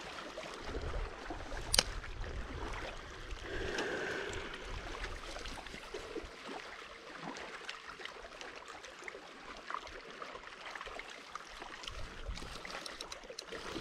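Gentle water lapping and gurgling against a kayak hull, with one sharp click about two seconds in.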